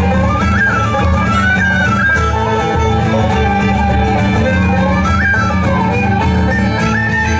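A bluegrass band playing an instrumental passage live: a fiddle carries a winding melody over guitar and a steady bass rhythm.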